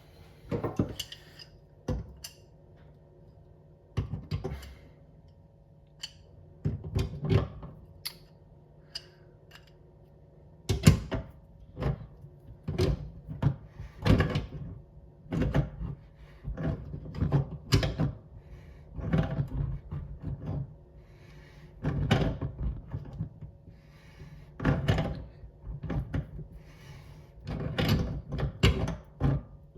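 Irregular clicks, knocks and scrapes of metal tap parts being handled as the retaining nut is threaded back down over a new mixer tap cartridge.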